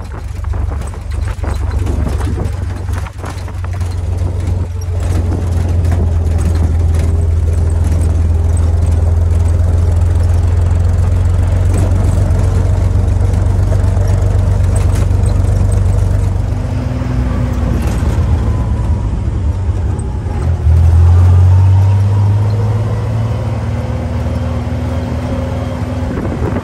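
1944 Willys MB jeep's four-cylinder Go Devil flathead engine running steadily under way on a gravel dirt road, heard from the open cab. About three-quarters of the way in it grows louder for a couple of seconds, then settles back.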